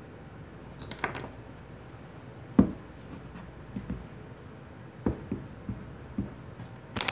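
Handling noise: irregular knocks and bumps as things are moved around close to the microphone, with one sharp thump about two and a half seconds in and crinkly rustles about a second in and near the end.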